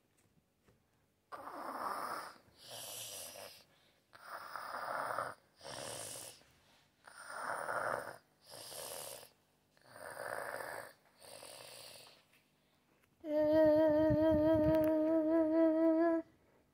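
Playacted snoring for a sleeping doll: four rasping in-breaths, each followed by a hissing out-breath, then a wavering held tone lasting about three seconds, the loudest part.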